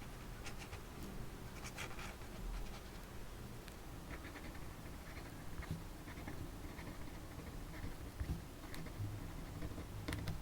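Paper and stationery handling on a desk: light scratching strokes on paper, with scattered small taps and clicks.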